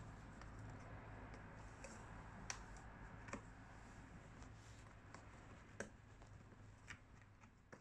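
Kittens' claws and paws catching on a corrugated cardboard scratcher as they play: faint, scattered clicks and scratches over a low steady hum.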